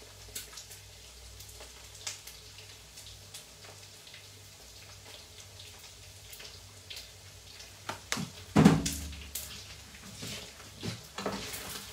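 Kitchen sounds while cooking: a faint steady hiss with scattered light clicks and taps, and a louder knock or clatter about two-thirds of the way through.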